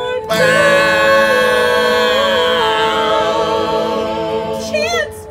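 Several voices singing one long held note together in harmony at the end of a line of a folk sea song, closing with a brief wavering note near the end.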